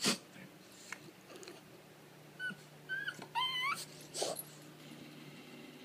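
French bulldog puppy whining: three short, high-pitched whines, the last one longer and wavering up and down, set between short noisy huffs near the start and about four seconds in.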